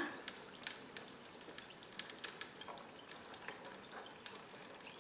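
Mr. Bubble Magic Bath Crackles popping and snapping faintly in bath water: irregular tiny clicks, several a second, over a soft hiss.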